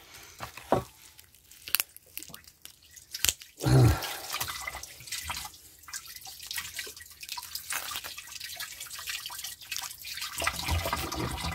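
Water dripping with many small wet clicks and taps as raw chicken pieces are handled, and a brief voice sound about four seconds in.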